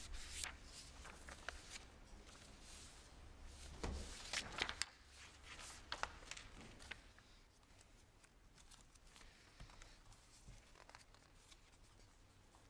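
Papers rustling and being shuffled at a lectern, with a few light clicks and knocks, loudest about four to five seconds in, then fading to faint room tone.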